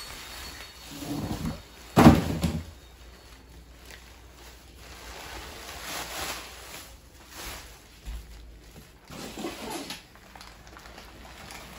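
Bubble wrap and plastic packing rustling and crinkling as it is pulled out of a cardboard box, in several separate bursts. A loud thump about two seconds in is the loudest sound.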